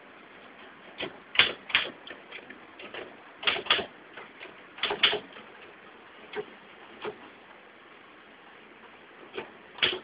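Manual typewriter keys striking at an irregular pace, singly or in quick pairs, with a pause of about two seconds near the end.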